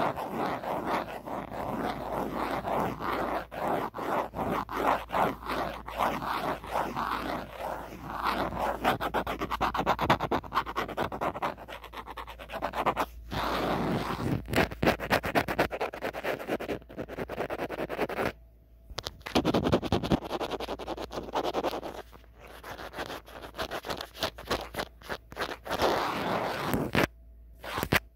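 Natural fingernails scratching and tapping on the back of an old phone in quick strokes, stopping briefly twice in the second half.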